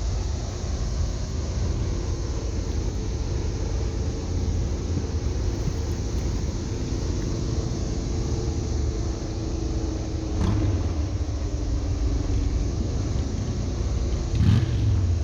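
Steady low rumble of a boat's engine running as it enters a lock, with faint steady tones above the rumble. A short sharp sound comes about ten seconds in and a louder one near the end.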